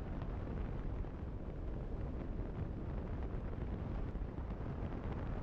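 Wind rumbling steadily on the camera microphone of a motorcycle riding at speed, with the bike's running noise underneath.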